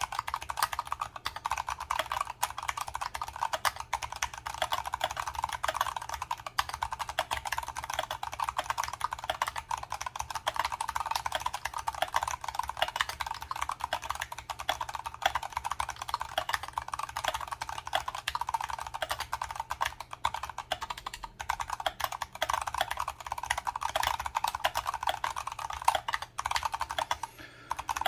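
Continuous fast typing on an Archon FX2 mechanical keyboard with Kailh Brown tactile switches: a dense clatter of keystrokes, with a brief pause near the end.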